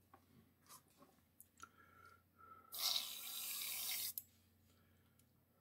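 Airbrush spraying paint: a few light handling clicks, then a steady hiss of air and paint lasting about a second and a half that cuts off sharply.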